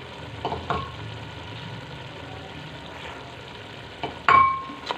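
Ghee and masala paste sizzling steadily in a steel pot as green chickpeas and spices are fried. A metal slotted spoon clinks against the pot twice, lightly, about half a second in, then strikes it once loudly near the end, leaving a short metallic ring.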